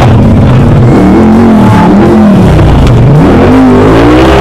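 Off-road tube-frame buggy's engine revving hard, the pitch rising and falling several times as the driver works the throttle while climbing a steep dirt hill.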